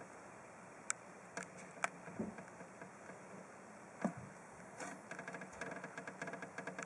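Scaleless Texas rat snake vibrating its tail, a fast run of faint ticks starting about five seconds in: the defensive rattle of an agitated snake. A few scattered light knocks come before it.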